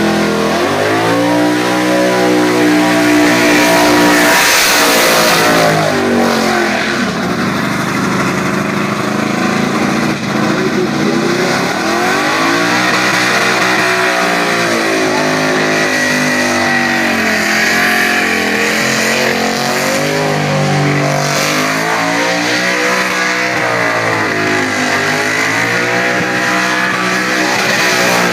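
Holden VX SS Commodore's V8 revving hard through a burnout. The engine pitch climbs and drops again and again as the throttle is worked, over the steady hiss of spinning, smoking rear tyres.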